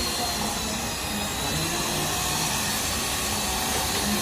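Large electric drill running steadily, its bit working in a hole in an engine cylinder head: an unbroken motor whir with cutting noise.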